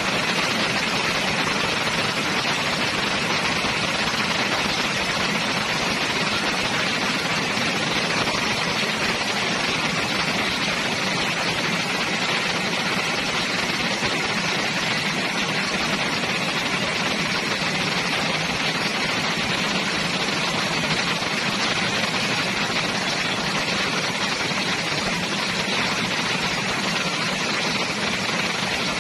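Steady rain falling on trees and rooftops, an even hiss that holds the same level throughout.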